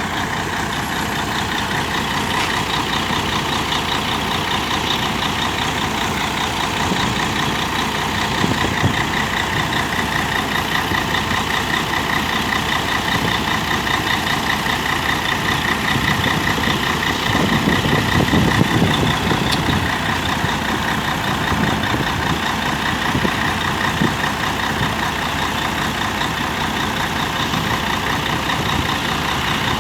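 Mercedes-Benz O-400 RSD coach's diesel engine running loud, with a steady high whine throughout. It swells briefly about two-thirds of the way through.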